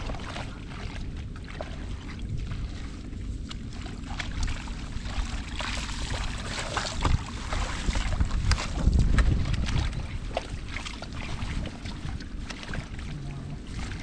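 Hands digging and groping in wet mud and shallow water, with irregular squelches, splashes and crackles, loudest about eight to nine seconds in. Wind buffets the microphone with a steady low rumble throughout.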